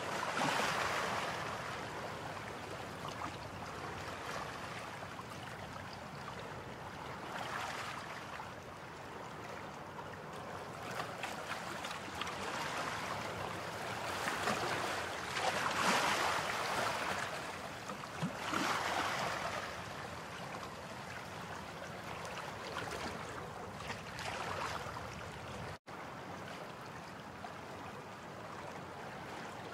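Sea waves breaking and washing up a beach, the rush swelling and fading every few seconds, with a split-second gap in the sound late on.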